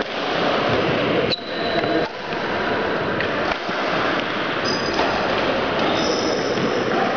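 Badminton play in a sports hall: a few sharp racket hits on the shuttlecock and short high squeaks of shoes on the court floor, over the steady din of the busy hall.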